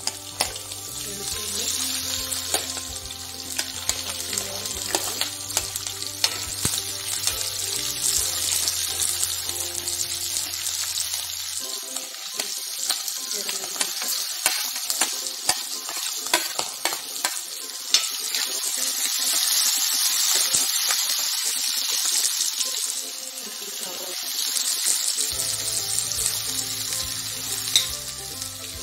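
Coconut slivers, then chopped shallots and sliced onions, sizzling in hot groundnut oil while a plastic spatula stirs them, with frequent small clicks and scrapes against the pan. The frying grows louder about two-thirds of the way through, once the onions are in. Faint background music plays at the start and near the end.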